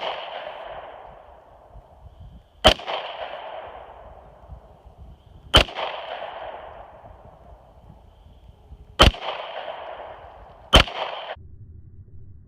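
Glock 43 9mm subcompact pistol fired four times at uneven intervals, each shot followed by a long echo that rolls away over a second or two. The last echo cuts off suddenly.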